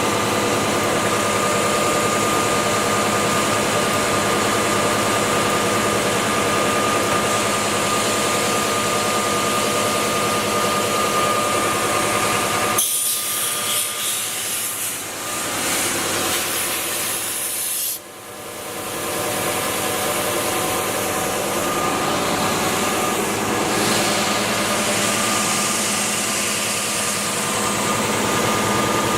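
Timesaver wide belt sander running with a 76-grit abrasive belt, grinding the dross off plasma-cut 16-gauge mild steel parts as they feed through: a steady grinding hiss over a constant whine. The sound changes abruptly a little under halfway through, drops sharply about two-thirds of the way in, then builds back up.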